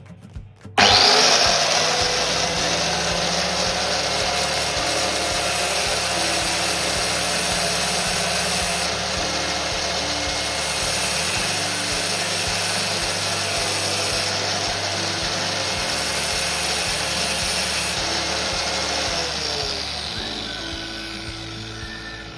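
Angle grinder fitted with a diamond wheel switching on about a second in and running steadily while a drill bit is ground against the wheel, then its whine drops as it spins down near the end.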